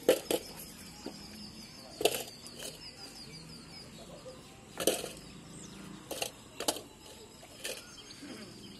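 Stones clacking against each other now and then as rocks are handled on a pile of broken rubble stone: about eight short, sharp knocks at irregular intervals. A faint, high-pitched repeated chirping runs underneath for the first few seconds.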